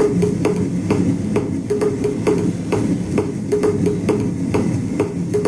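Percussive music track played through a pair of Gradiente Master 100 three-way loudspeakers with 12-inch woofers: sharp, evenly spaced percussion hits about four a second over a low bass line and short repeated mid notes.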